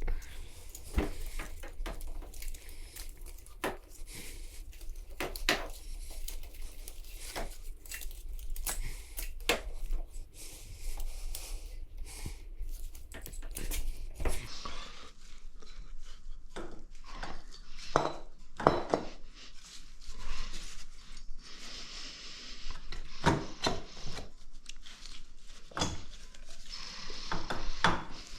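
Metal engine parts and hand tools clinking and knocking in irregular, scattered strikes during hands-on engine assembly. A low background hum stops about halfway through.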